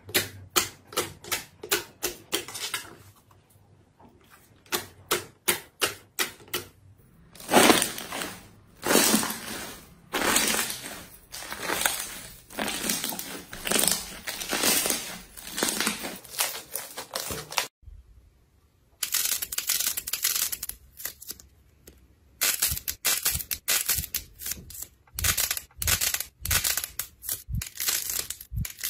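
Hands poking, kneading and squeezing slime: quick sharp pops and clicks at first, then a long run of dense wet crackling and squelching. There is a short break about two-thirds of the way through, then more sharp pops.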